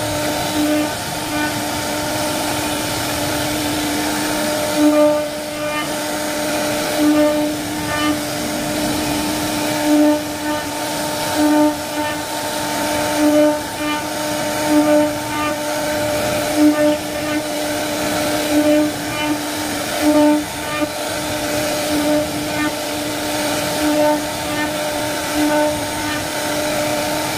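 CNC wood-carving router running and cutting wood, with a steady spindle hum that swells briefly louder every second or two.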